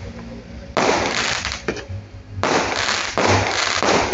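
Fireworks going off: a sudden bang about a second in that rings out for about a second, then a longer run of several bangs from about two and a half seconds in.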